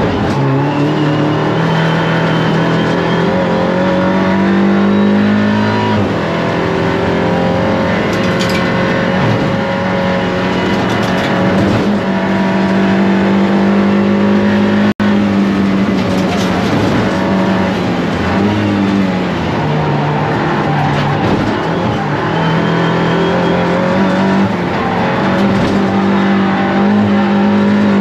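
Audi RS 3 LMS TCR race car's 2.0 TFSI turbocharged four-cylinder, heard from inside the stripped cockpit while lapping a circuit. The engine note climbs under acceleration and drops several times for gear changes and braking, with a sudden brief dropout about halfway.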